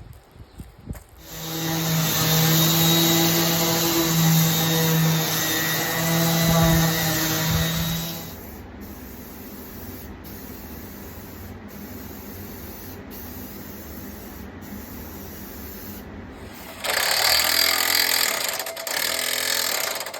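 Power drill running under load for about seven seconds at a steady pitch, boring through the wooden swing frame for through-bolts. Then a quieter steady hum, and near the end a second, noisier burst of power-tool sound.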